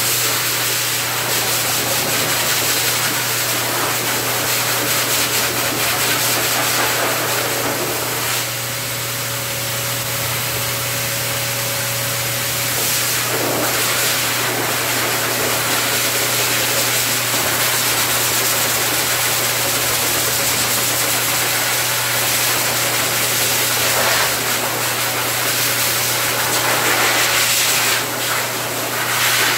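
Pet blow dryer forcing air through its hose and nozzle onto a wet dog's coat: a steady loud rush of air over a steady motor hum, the rush rising and falling a little as it plays over the fur.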